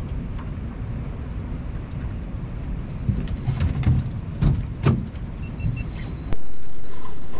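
Steady wind rumble on the microphone in a small boat, with a few knocks around the middle. Near the end a sudden loud rushing noise starts and slowly fades.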